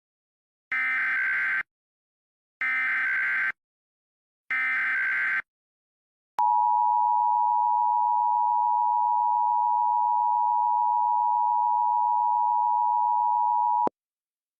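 Emergency Alert System tones: three short bursts of SAME header data, each a buzzing screech of under a second, spaced about a second apart, then the EAS two-tone attention signal, a steady harsh dual tone held for about seven and a half seconds and cut off sharply.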